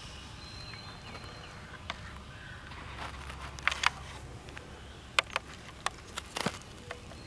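Quiet woodland with faint chirping bird calls and a low rumble, broken in the second half by about half a dozen sharp clicks, the loudest sounds.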